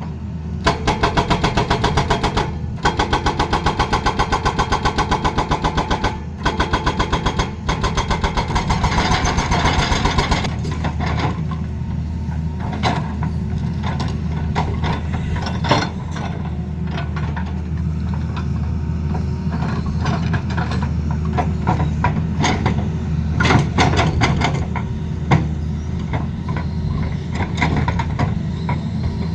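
Hydraulic excavator at work: a fast, even hammering for about the first ten seconds, broken by a few short gaps, then a steady diesel engine drone with scattered knocks.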